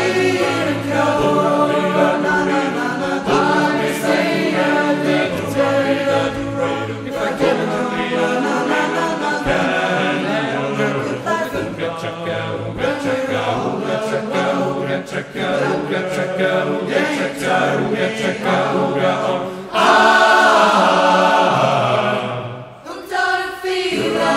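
Background music: a song with group or choir-like singing over accompaniment, with a brief drop in level near the end.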